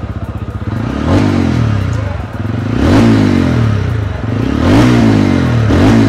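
TVS Ronin's 225.9 cc single-cylinder air- and oil-cooled engine idling through its short stubby exhaust, blipped about four times. Each blip rises sharply in pitch and falls back to idle.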